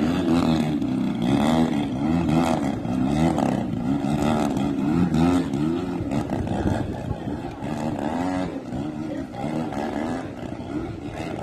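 Engine of a radio-controlled model airplane running continuously, its pitch rising and falling over and over as the plane manoeuvres.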